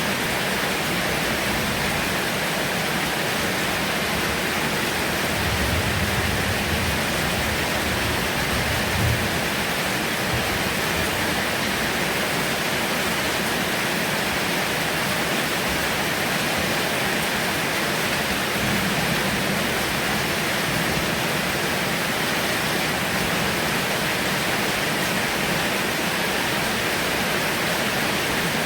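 Heavy rain falling steadily, a dense even hiss, with a low swell for a few seconds about six seconds in and another around nineteen seconds in.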